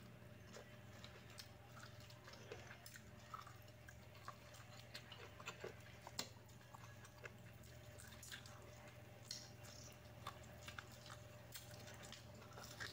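Faint chewing and biting of boiled corn on the cob: scattered small clicks and crunches, irregular, over a low steady hum.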